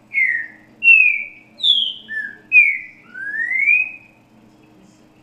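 Green-winged saltator (trinca-ferro) singing a 'grego boca mole com boi' song: six clear whistled notes in quick succession, most falling in pitch, the last a longer rising whistle, ending about four seconds in.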